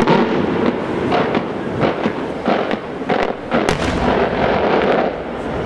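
Aerial fireworks shells going off in a display: one sharp bang after another, about two a second, over steady background noise.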